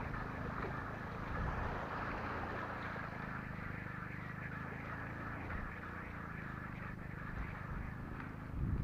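Small waves washing and lapping on a sandy, stony shore, a steady hiss with a low rumble from wind on the microphone.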